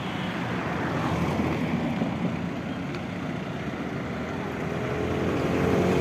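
Steady road-traffic noise on a bridge. Over the last second or two, a bus engine grows steadily louder as the bus comes up close alongside.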